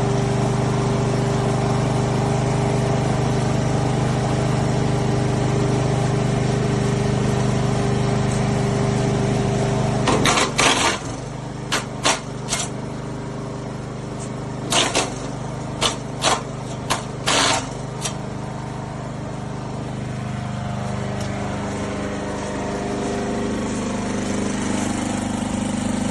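SuperHandy wood chipper's 7 HP gasoline engine running steadily. From about ten to eighteen seconds in, a series of loud sharp cracks and snaps as branches are chewed through the rotor.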